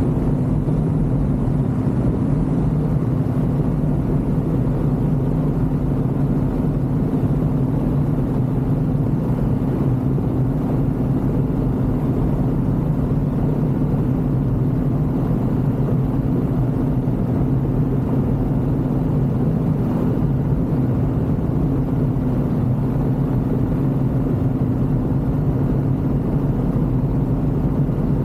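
Ultralight aircraft engine running steadily in flight, a constant drone at one pitch with no change in power.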